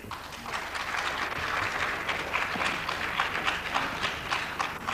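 Audience applauding, many hands clapping at once, swelling in the first second and thinning out near the end.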